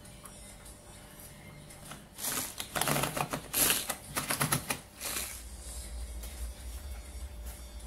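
Pull-cord manual food chopper worked with quick pulls, its spinning blades clattering as they chop chunks of meat: a fast, clicking rattle from about two seconds in to about five.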